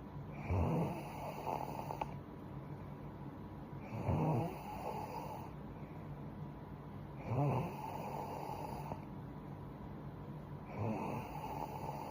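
A young woman snoring in her sleep: four snores about three and a half seconds apart, each loudest at its start and trailing off over about a second and a half.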